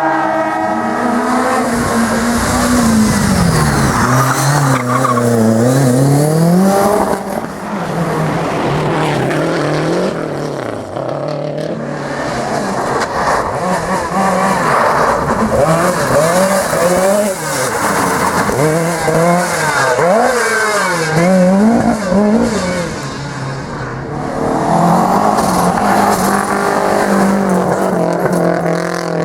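Rally car engine driven hard, its pitch climbing and dropping again and again as it revs up through the gears and lifts off, with tyres squealing.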